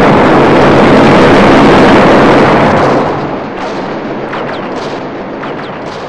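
Massed rifle fire: a dense, continuous barrage of gunshots, then after about three seconds a quieter spatter of separate shots.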